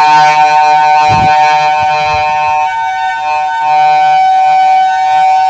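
Whelen WPS-4004 electronic outdoor warning siren sounding its steady dual-tone signal: two held pitches together as one chord, loud and unbroken. A brief low thump sounds about a second in.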